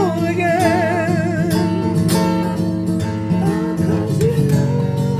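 Acoustic guitar song: a voice holds a wavering, vibrato note for about the first second and a half, then the guitar plays on without words.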